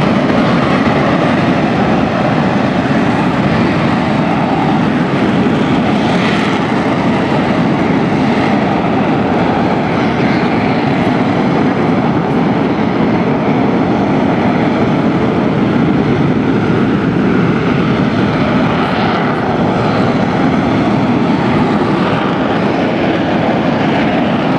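Several BAE Hawk T1 jets' Rolls-Royce Adour turbofans at high power as the jets roll down the runway together for takeoff: loud, steady jet noise with no break.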